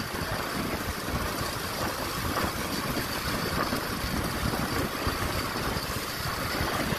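Steady engine and road rumble of a vehicle travelling along a paved road, heard from on board.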